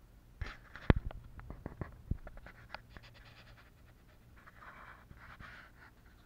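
Handling noise from the camera being touched and shifted: a cluster of sharp clicks and knocks, the loudest about a second in, followed near the end by a few soft hissing noises.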